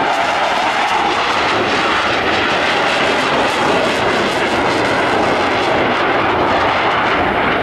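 Military jet aircraft flying, its engine noise a loud, steady rush.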